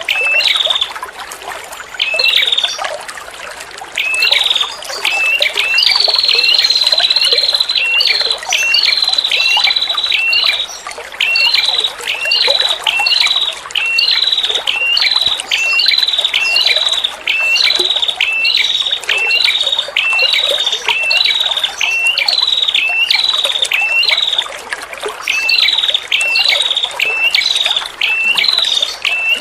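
Female prenjak kepala merah (a small Indonesian warbler, the 'red-headed prenjak') calling the long 'tir' call: a fast series of short, high, hooked notes, about two a second, with a longer unbroken run about a fifth of the way in. A steady trickle of running water, added to the recording, runs under the calls.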